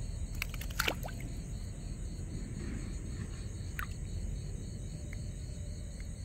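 Night insect chorus, a steady high pulsing trill, over a constant low rumble. A few sharp clicks and a short falling chirp come about a second in, and another brief falling chirp near four seconds.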